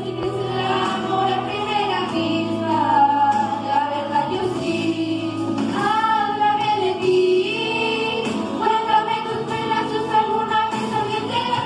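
A vocal sextet of schoolchildren, mostly girls' voices, singing together into handheld microphones, with several held, gliding voice lines at once.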